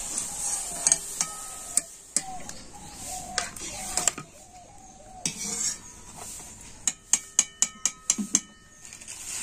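Wire-mesh skimmer lifting deep-fried pakoras out of sizzling oil in a wok, clinking against metal and the plate as they are set down. Near the end the skimmer gives a quick run of about eight sharp, ringing metallic taps.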